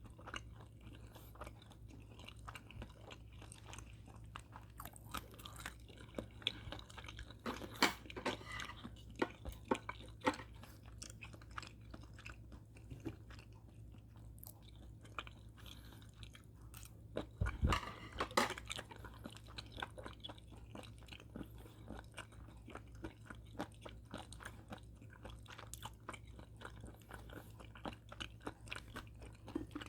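Someone chewing food close up, with many irregular crunchy bites and mouth clicks over a steady low hum.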